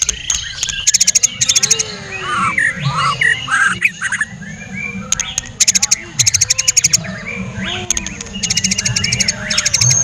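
White-rumped shama singing close up: a fast, varied song of sliding whistles broken by three quick runs of sharp clicking notes.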